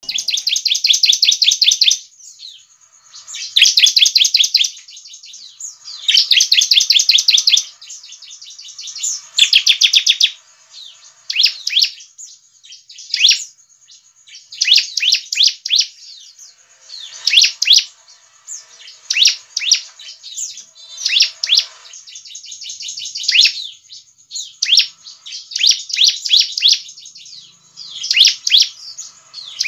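Bar-winged prinia (ciblek) singing: high, rapid trills of fast repeated notes. The first four phrases last a second or more each, and after that come shorter bursts about once a second.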